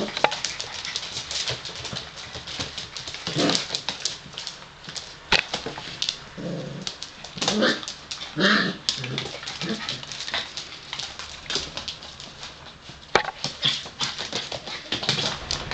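Five-week-old Gordon setter puppies playing, giving short whimpers and yips every few seconds among scuffling and sharp clicking sounds.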